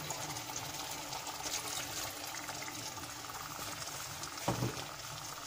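Water being poured into a steel pot of chicken curry, an even trickle, with a brief knock about four and a half seconds in.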